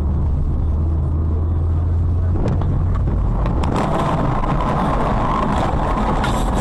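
A car on the move: a steady low drone of engine and road noise, then several sharp knocks about two and a half to three and a half seconds in, after which a louder hiss takes over.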